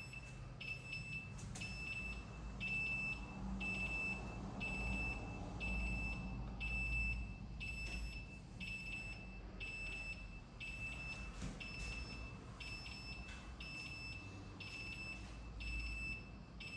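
Building fire alarm sounder going off for a test, a high-pitched tone pulsing on and off about twice a second, over a low steady hum.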